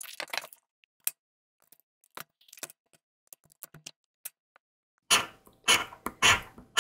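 Scattered light clicks and short scrapes. Then, from about five seconds in, loud rhythmic scratching strokes about two a second: an instant lottery scratch card (Speetto) being scratched off.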